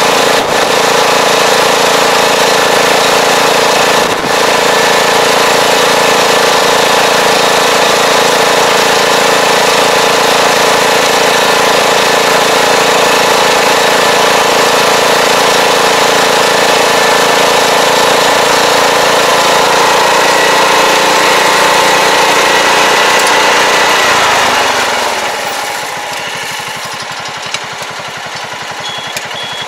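Tractor engine running steadily at working speed while pulling a rear-mounted fertilizer applicator through a tilled field. About 24 seconds in, the engine note falls and quietens, and near the end a high reversing beep starts.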